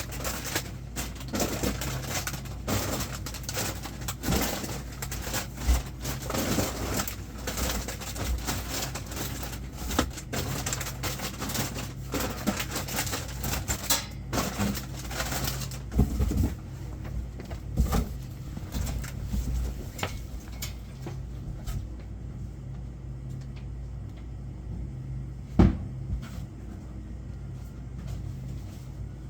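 Clattering and knocking of boxes and packaged goods being handled while delivered stock is put away, over a steady low hum. The handling thins out after about twenty seconds, with one sharp knock near the end.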